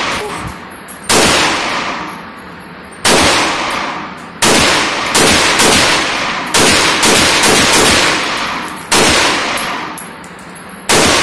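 AR-15 pistol with a 150-round drum magazine fired semi-automatically: about a dozen single shots echoing in an indoor range, a second or two apart at first, then coming two or three a second.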